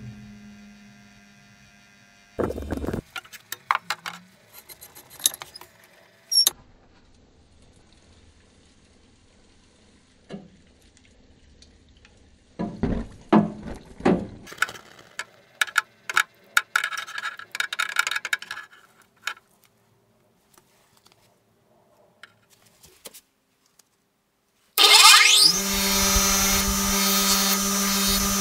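Knocks and clatter of tools and metal being handled, then an electric power tool switches on near the end, spins up with a rising whine and runs steadily.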